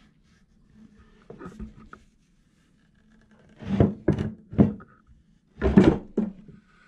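Resawn slabs of apple wood and epoxy being handled on a workbench: dull knocks and thunks as the boards bump together and against the bench, a quick cluster about four seconds in and a loud one near six seconds, over a faint steady hum.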